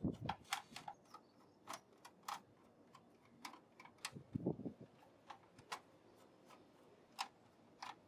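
Faint, irregular small metallic clicks and ticks of a screwdriver working the screws that hold a motherboard to a steel PC case, with a soft low knock about halfway through.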